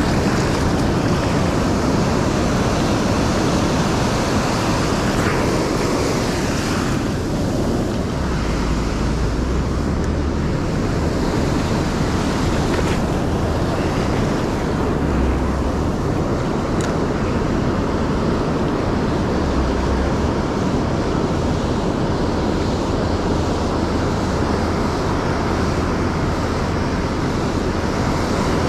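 Ocean surf washing onto a beach in a steady rush, with wind rumbling on the microphone in gusts.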